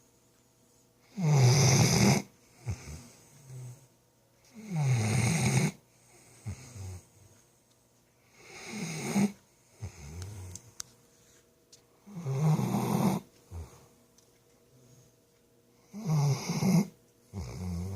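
Loud snoring in a slow, even rhythm: five heavy snores about every three and a half to four seconds, each followed by a shorter, quieter breath sound.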